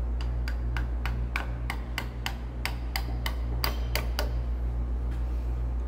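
Ratchet wrench clicking at an even pace, about three ticks a second, stopping about four seconds in. A steady low hum from machinery runs underneath.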